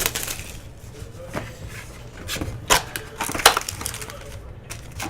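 Trading-card packaging being torn and crinkled open by hand, a run of sharp crackles and rips, the loudest about two and a half and three and a half seconds in.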